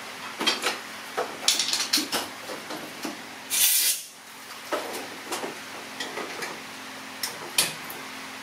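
Compressed-air blow gun blasting drilling swarf out of a tractor carburettor bore: one short hiss of about half a second halfway through, among scattered light metallic clinks and taps.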